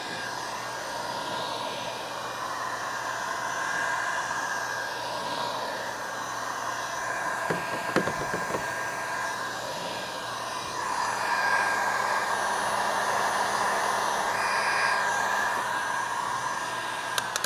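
Electric heat gun blowing steadily, its fan hiss and motor whine swelling and easing in level, as it warms the kayak deck to dry the alcohol wipe and begin activating the pad adhesive. A few faint knocks about halfway through.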